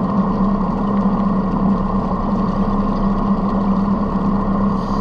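Steady motor drone heard underwater: an unchanging low hum with a higher whine above it.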